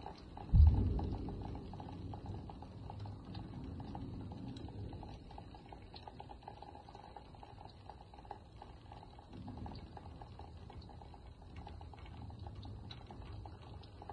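Steady rain with many small ticks of drops, and a sudden loud clap of thunder about half a second in that rumbles away over the next few seconds. A fainter rumble of thunder rises again about two-thirds of the way through.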